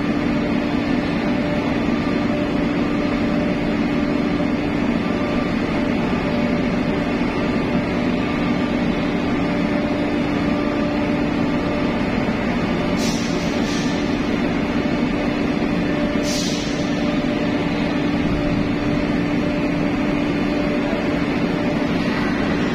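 Steady droning hum of machinery and truck engines in a ship's enclosed vehicle deck, with three short high hisses a little past halfway.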